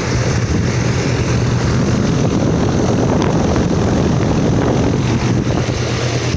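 Outdoor condenser unit of a 4-ton Ruud Achiever RA14AZ central air conditioner running in cool mode. Its LG scroll compressor gives a steady low hum under the even rush of air from the condenser fan.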